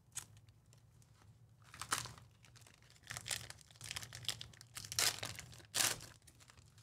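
A trading-card pack wrapper being torn open and crinkled: a series of short crinkling and tearing bursts, the loudest about five and six seconds in.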